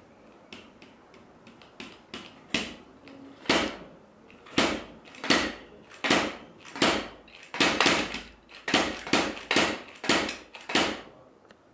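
Felt beater of a bass drum pedal striking a 3D-printed drum pad with a Remo head, heard acoustically as dull knocks with no drum-module sound. A few light taps, then harder strokes that speed up to about three a second.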